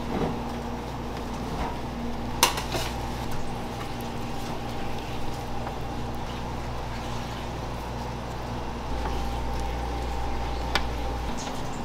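Commercial kitchen background: a steady hum from kitchen equipment, with a sharp clink of metal kitchenware about two and a half seconds in and a lighter one near the end.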